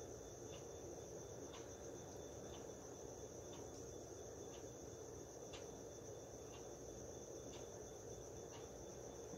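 Crickets at night: a steady, high-pitched trill with a short chirp about once a second.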